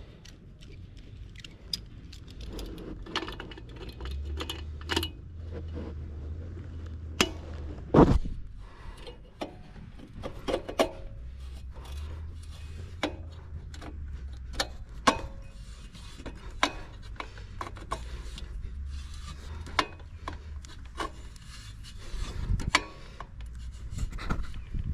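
Scattered metal clicks and clinks of a socket wrench being worked, tightening the bike back up after the chain adjustment, with a louder knock about eight seconds in.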